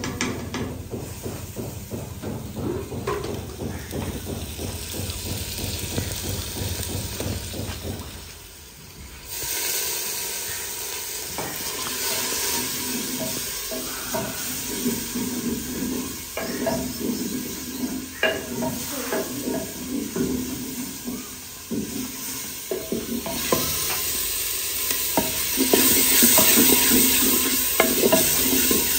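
A wooden spoon stirring and scraping around a clay pot while onions, tomatoes, green chillies and spices sizzle in hot oil. The sizzle grows louder near the end.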